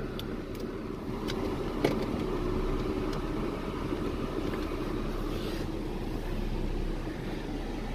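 Ford Mustang running at low speed from inside the cabin as it is shifted and reversed slowly into position, a steady low engine rumble. One sharp click sounds about two seconds in.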